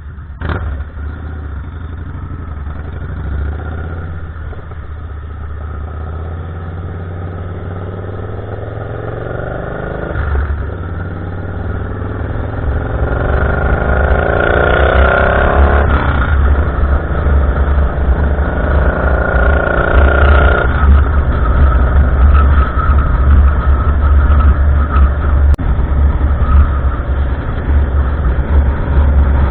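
Vehicle engine and exhaust accelerating through the gears: the engine note climbs, then drops suddenly at each shift, twice about halfway through, and gets louder as it goes.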